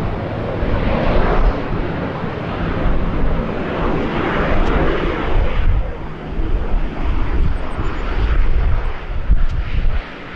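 Boeing 747-8F freighter's four GEnx jet engines running as the aircraft passes on approach, a broad jet rush that swells and fades. Gusty wind buffets the microphone with a heavy, uneven low rumble.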